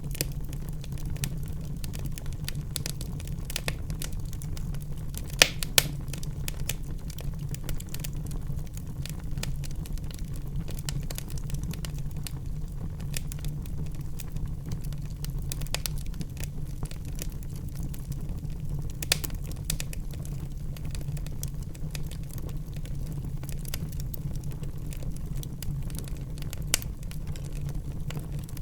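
Wood fire burning in a fireplace: a steady low rumble of flames with constant small crackles and a few sharper pops, the loudest about five and a half seconds in.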